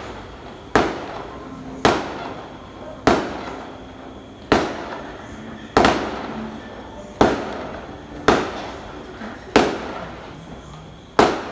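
Aerial fireworks bursting in a steady series: about nine sharp bangs, a little over a second apart, each one echoing away before the next.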